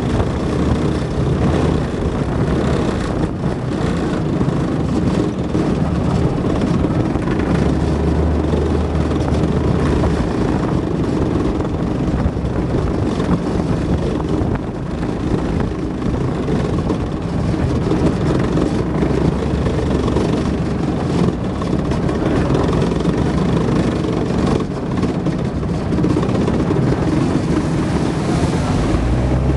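Tracked armoured personnel carrier driving across rough ground, heard from on top of its hull: a steady, loud mix of diesel engine and running-gear noise. Near the end it drives through a muddy puddle, and water splashes up against the hull.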